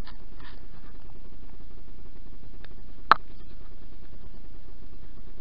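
A single sharp click about three seconds in, with a few fainter ticks, over a steady low background hum.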